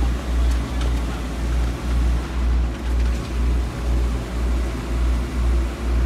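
Concrete boom pump running with a heavy low rumble that pulses about twice a second.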